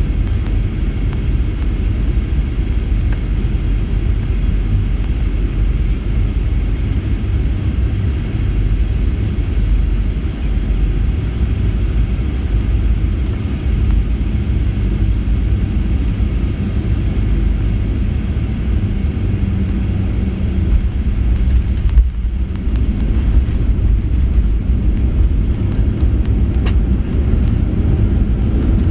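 Boeing 737-800 cabin noise heard from a forward seat: a steady low rumble of engines and airflow. About three-quarters of the way through there is a sudden thump, after which the cabin rattles with a run of short clicks.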